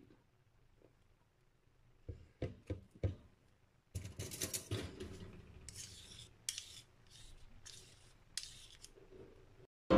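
Metal spoons clinking a few times, then a spoon scraping against another spoon in short repeated strokes, wiping thick mocha coffee syrup off into a bowl of buttercream.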